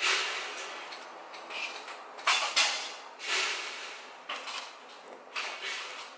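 Empty plastic ice-cream pouch crinkling in short bursts as a hand works it against a cat's face. The loudest burst comes right at the start, and several more follow from about two seconds in.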